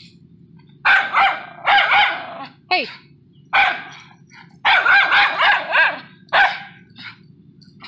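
Miniature schnauzer barking at a lawnmower in quick runs of sharp barks, with a short falling yelp about three seconds in, over a steady low hum.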